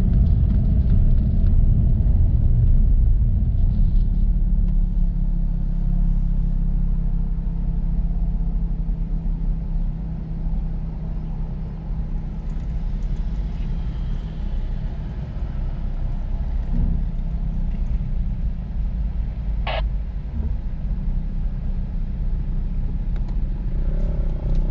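Onboard sound of a Jaguar F-Type driven at low speed: a steady low engine note mixed with tyre rumble on the cobbled road, a little louder at first and then settling lower.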